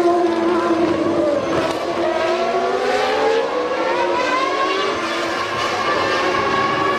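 Formula One car engine at high revs, its pitch dipping slightly in the first second, then rising steadily as the car accelerates.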